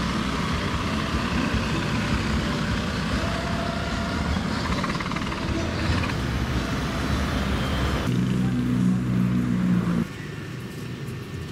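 Motor engine running steadily amid busy outdoor noise, turning into a steady low engine hum for a couple of seconds. About two seconds from the end the sound cuts abruptly to quieter background ambience.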